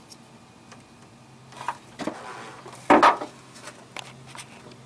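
Hand tools and metal parts being handled at the front of an engine: a short scrape about two seconds in, a sharp clunk about three seconds in, then a few light clicks.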